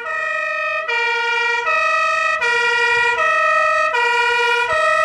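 Fire engine's German two-tone siren (Martinshorn) sounding, a low and a high note alternating about every 0.8 seconds, a little louder after the first second.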